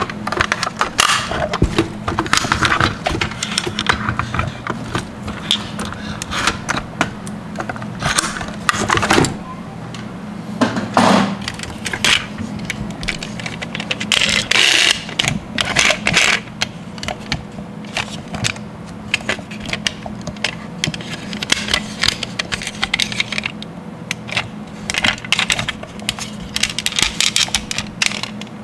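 Die-cast metal toy cars clicking and clattering as they are handled, with small metal and plastic parts knocking together and the doors snapped open; irregular sharp clicks come in clusters, over a steady low hum.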